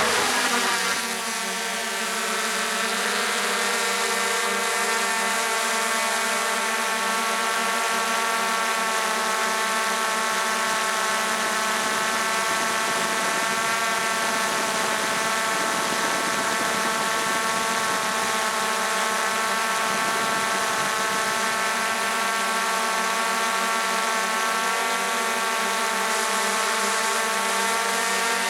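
Propeller engine running, higher for the first second or two and then settling into a steady, even drone at constant speed.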